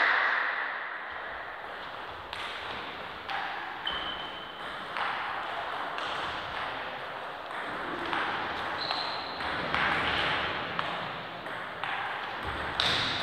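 Table tennis ball being played back and forth in a rally: sporadic sharp clicks of the ball off the bats and the table.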